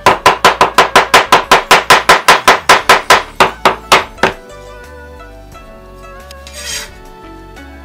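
Chinese cleaver rapidly mincing ginger on a wooden cutting board, about six quick chops a second for some four seconds before stopping. A brief scrape of the blade across the board follows near the end. Soft background music plays throughout.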